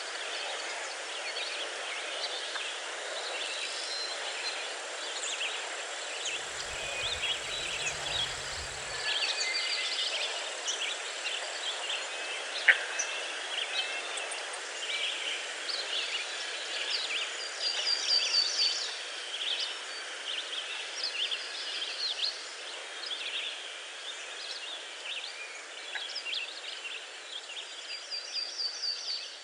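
Steady rushing of a waterfall with many songbirds chirping and trilling over it. A brief low rumble comes about six seconds in, and a single sharp click about halfway through.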